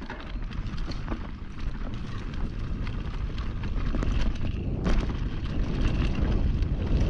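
Wind buffeting the microphone over the rumble and rattle of a mountain bike rolling fast down a dry dirt trail, getting louder as it picks up speed, with a sharp knock about five seconds in.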